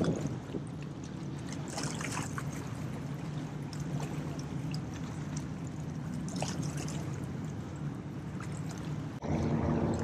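Small waves lapping and splashing against jetty rocks at the water's edge, over a steady low hum of boat motors in the channel. About nine seconds in, a louder hum with steadier tones starts abruptly.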